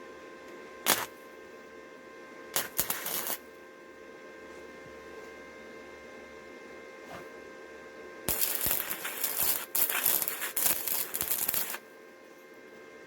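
Wire-feed welder arc crackling in short bursts: a quick tack about a second in, a brief spurt of under a second, then a longer run of about three and a half seconds near the end as a washer is welded to a steel rod.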